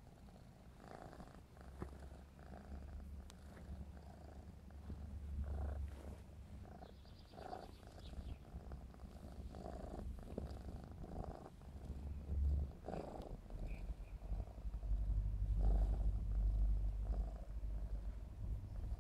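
Black smoke Maine Coon kitten purring continuously as it is stroked, a low rumble that swells in stretches and is loudest near the end.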